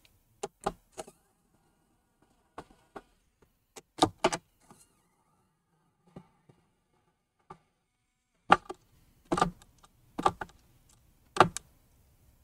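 Short bursts and clicks of a small handheld electric screwdriver backing out screws from the computer's lower metal bracket, with the tool and screws tapping on metal and plastic. There are about a dozen separate short sounds, the loudest in the second half.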